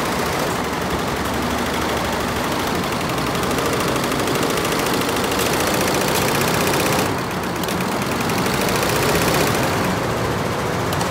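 Multi-head computerised embroidery machine stitching, its needle bars making a rapid, steady mechanical clatter that dips briefly about seven seconds in.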